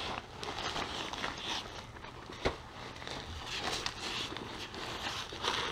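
Bubble-wrap packaging rustling and crinkling in uneven patches as a fabric bag is handled and pulled out of it, with one sharp tap about two and a half seconds in.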